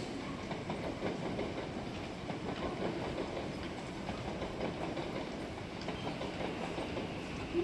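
Odakyu 5000 series electric train running into the station, with the steady rolling noise of its wheels on the rails and a faint steady tone underneath.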